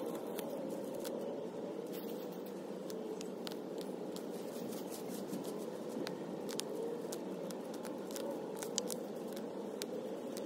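Gloved hands working through dry bark mulch and grass, with scattered crackles and scrapes over a steady hum.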